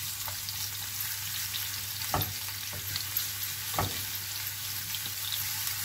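Crushed garlic sizzling in olive oil in a nonstick frying pan while a silicone spatula stirs it, the garlic being fried until it turns lightly golden. Two short knocks come about two and four seconds in.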